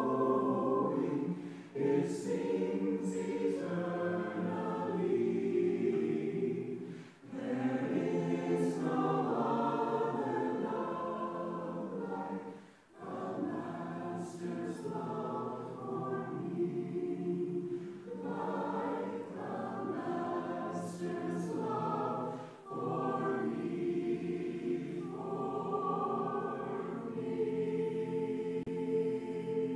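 Mixed choir of men's and women's voices singing a devotional song in phrases, with short breaks for breath, holding a long note near the end.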